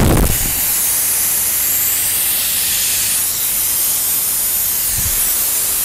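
Yamasu 2 HP oil-free twin-head air compressor running, a steady loud airy hiss over a faint low motor hum.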